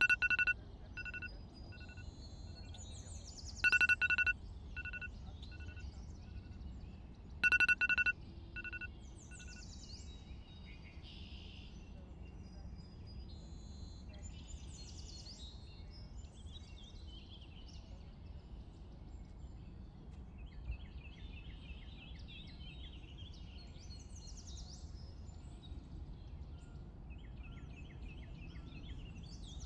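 Mobile phone alert tone beeping three times about four seconds apart, each beep followed by quickly fading echoes. Birds chirp faintly throughout over a low steady hum.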